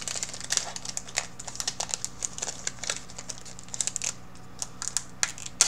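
Foil wrapper of a Yu-Gi-Oh booster pack crinkling as it is torn open and handled: quick, irregular crackles and rustles.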